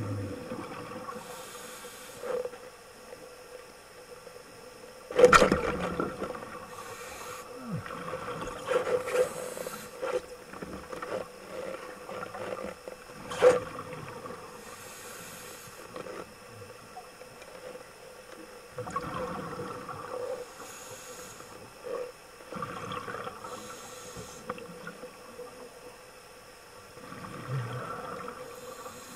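Underwater sound on a diver's camera: scuba breathing, with hisses and bursts of bubbling every few seconds over a steady hum. Two sharp knocks stand out, about five and thirteen seconds in.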